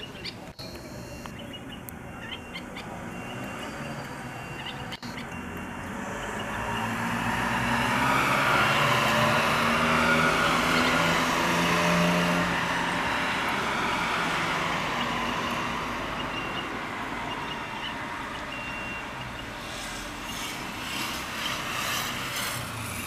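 A motor vehicle passing: engine and road noise that swells over several seconds, is loudest in the middle, then slowly fades. A few short handling clicks come near the end.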